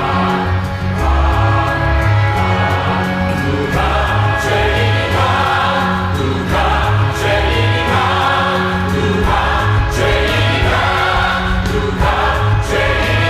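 Choral worship music: a choir singing over an accompaniment with a held bass line and a regular percussion beat.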